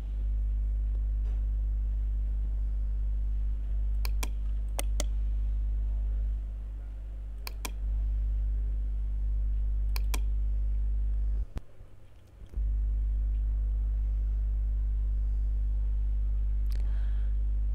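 Steady low electrical hum with a few sharp computer-mouse clicks spread out through it. The hum briefly drops away about two-thirds of the way through.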